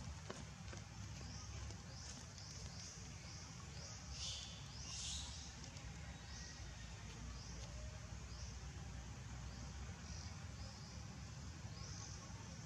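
Outdoor forest ambience: a steady low rumble under a faint high chirp that repeats every second or so, with a louder high-pitched call about four to five seconds in.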